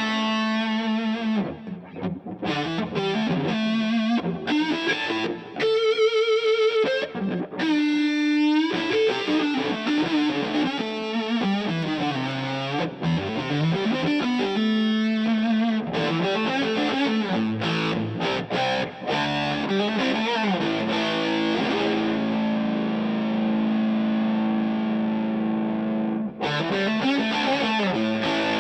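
Electric guitar played through the DVII guitar amplifier: single-note lines with pitch bends, and a long held note through much of the second half.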